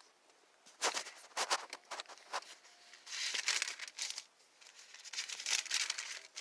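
Paper rustling as book pages are handled and turned: a run of crisp crackles, then two longer rustling sweeps.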